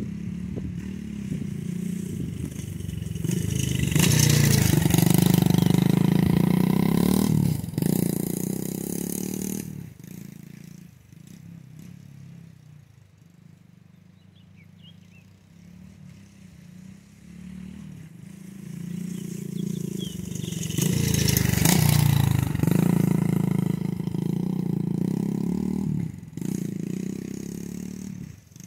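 Dirt bike engine passing close by twice, each time growing loud and then falling away, with the engine fainter in the distance between the passes.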